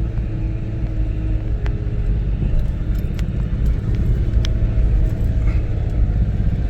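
Nissan R50 Pathfinder 4x4 crawling up a rutted dirt trail in four-wheel drive: a steady low engine and drivetrain rumble with scattered sharp ticks and rattles.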